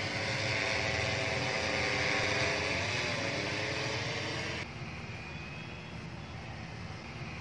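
Large multirotor drone's propellers and motors running with a steady high whine, the pitch drifting as the motors change speed. The sound drops suddenly in level and loses its high whine a little over halfway through.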